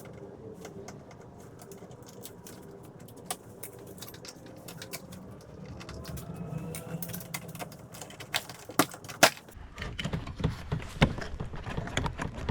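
Scattered small clicks and taps of plastic and metal as the screws holding a car's mirror-switch trim panel are undone and the panel is worked loose. The clicks get busier in the second half, with two sharp louder clicks a little before nine seconds in.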